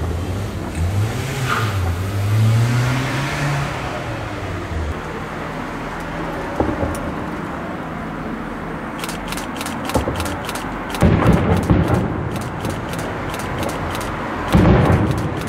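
Fireworks display: a low wavering hum over the first few seconds, then dense rapid crackling from about nine seconds in, with loud bursts around eleven seconds and near the end.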